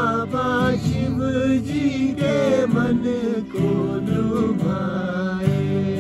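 A man singing a melody with wavering, ornamented pitch over strummed acoustic guitar chords.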